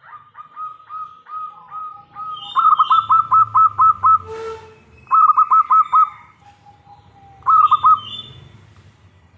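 Zebra dove (perkutut) singing: runs of quick staccato cooing notes, soft at first, then three loud bouts. A short click comes about midway.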